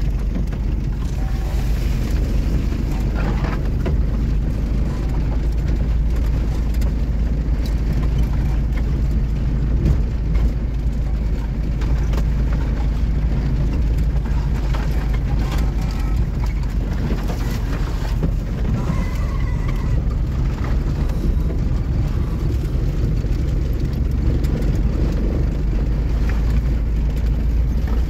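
Car driving noise heard from inside the cabin: engine and tyres make a steady low drone, with scattered knocks and rattles from the body over the bumpy dirt track.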